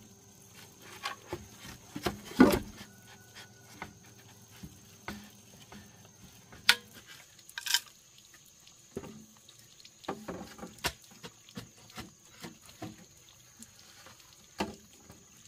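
Scattered light knocks and taps, one louder knock about two and a half seconds in, over a faint steady high-pitched whine.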